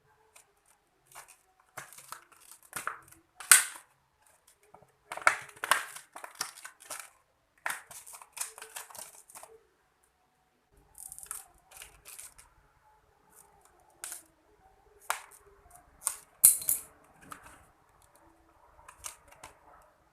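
Plastic packaging being handled and opened by hand: irregular bursts of crinkling and rustling, with a gap about halfway through and a sharp crackle near the end.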